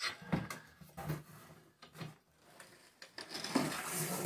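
Stacked white ceramic wall tiles being handled and pulled from their cardboard box, knocking against each other a few times, with a longer scraping rub about three seconds in.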